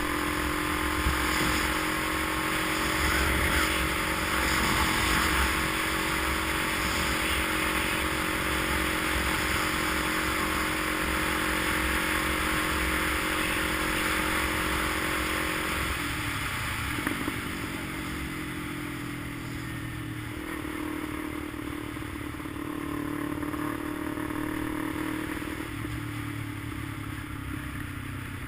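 A vehicle engine running steadily on the move, with road and wind noise. About halfway through, the engine note drops and the noise eases, as if slowing down.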